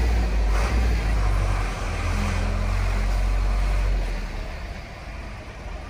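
Mercedes-Benz 711D camper van's diesel engine running as the van drives slowly, a steady low drone that drops away noticeably about four seconds in.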